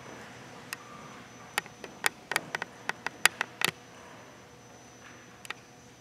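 A scattering of sharp, irregular clicks, about a dozen, bunched between one and four seconds in with one more near the end, over quiet hall room tone.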